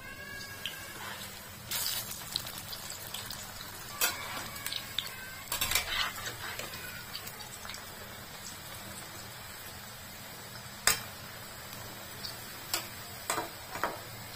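Pakoras deep-frying in hot oil in a metal kadai, a steady sizzle. Now and then the slotted metal spatula knocks and scrapes against the pan, giving sharp clinks, about a dozen of them, the loudest near the middle.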